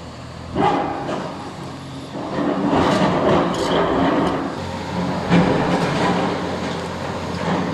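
CAT 336E hydraulic excavator's diesel engine running under load while tearing down a building, with bursts of clattering and scraping rubble: one about half a second in, a longer stretch from about two and a half seconds, and another just past five seconds.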